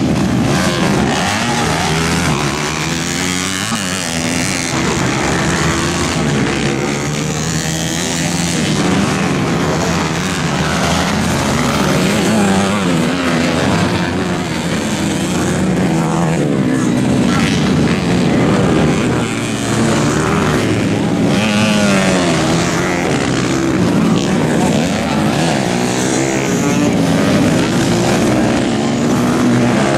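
Several off-road dirt bike engines revving hard, their pitch repeatedly rising and falling as the throttle is opened and closed, with overlapping engine notes from more than one bike.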